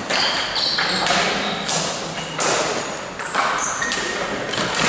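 Ball hockey play: several sharp thuds and taps of sticks and ball on the playing surface, with short high squeaks in between.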